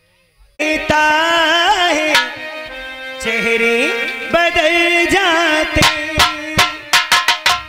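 Folk band music for a nautanki dance. After a brief pause, a melody instrument plays sliding, bending notes over a steady lower note. Hand-drum strokes come back in near the end.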